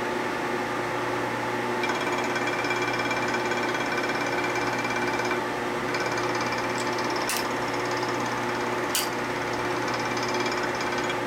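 Milling machine spindle running while an end mill takes a light cut in an aluminium Harley-Davidson knucklehead crankcase turned on a rotary table. A ringing cutting chatter starts about two seconds in, breaks off briefly near the middle and resumes, with two sharp clicks late in the cut.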